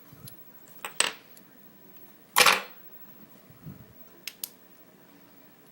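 Small metal lock parts from a gutted Schlage pin-tumbler lock being handled and set down on a hard surface. There are a few sharp clinks, the loudest a little over two seconds in and ringing briefly, then two light ticks near the end.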